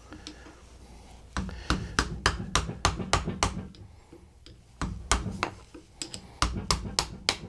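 Quick, sharp metal taps in three runs, about three or four a second, as a screwdriver taps a stuck sleeve off the inner tie rod of a power-steering rack.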